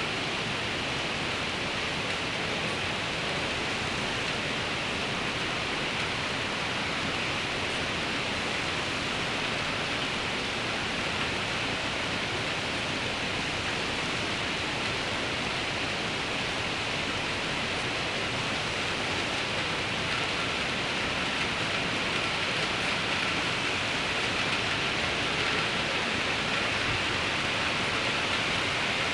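Steady rain falling, an even hiss that grows slightly louder in the last few seconds. A faint thin steady tone joins about two-thirds of the way through.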